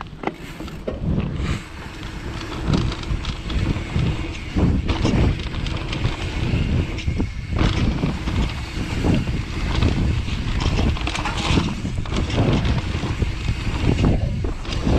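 YT Industries Capra enduro mountain bike riding fast down a dirt forest trail: tyres rumbling over the ground and the bike rattling and knocking over bumps. It gets louder over the first couple of seconds as it picks up speed.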